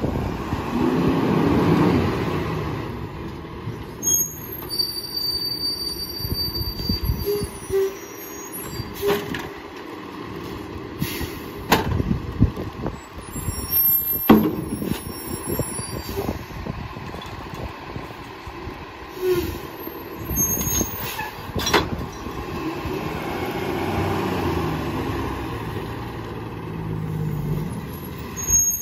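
Heil PT1000 rear-loader garbage truck on a Freightliner chassis: its engine rises under load as the hydraulic packer cycles, near the start and again near the end. In between come sharp thuds and clatter as trash bags are thrown into the hopper.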